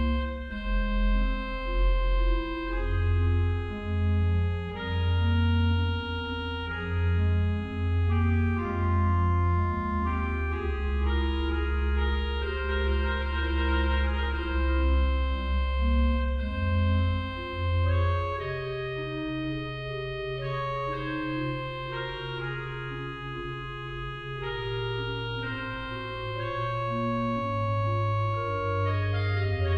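Church pipe organ playing a slow piece in sustained chords, over a bass line of low notes that change about once a second.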